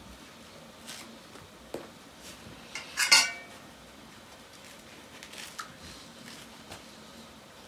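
Forks clinking and scraping against a metal pan while food is eaten from it. Scattered small clicks, with one loud ringing clink about three seconds in.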